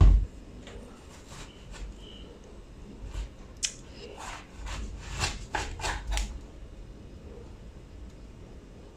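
Kitchen knife cutting through a watermelon on a board: a heavy thump at the start, then a run of short sharp knocks and crunches from about three seconds in to past six seconds.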